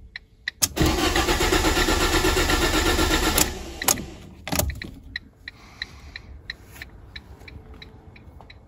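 Ford Ka's starter cranking the engine for about three seconds without it catching, the sign of the active post-crash fuel cut-off. It stops abruptly, and faint light ticks follow at about two a second.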